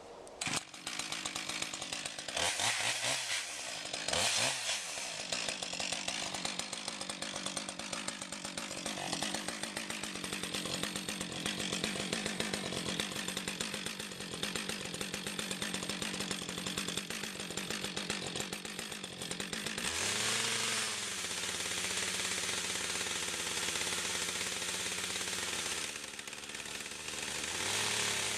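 Husqvarna 562 XP two-stroke chainsaw with a ripping chain, revved up and down twice and then held at high revs as it rips lengthwise through a pine log in a chainsaw mill. The engine note shifts about two-thirds of the way through and sags briefly near the end before picking up again.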